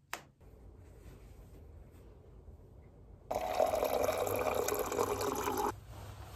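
Water pouring in a steady stream from a countertop water dispenser's spout into a glass tumbler. It starts about three seconds in and cuts off abruptly a couple of seconds later.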